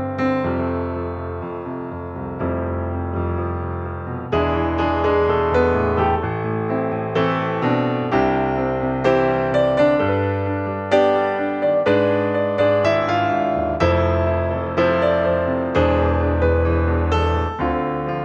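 Background solo piano music at a calm pace: single notes and chords struck over held low bass notes.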